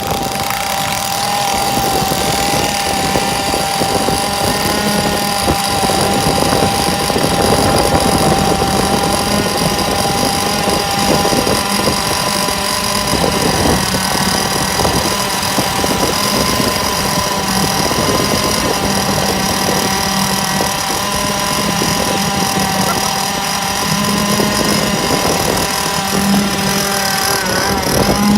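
Small two-stroke gasoline engine of an RC gas boat running steadily at a constant speed.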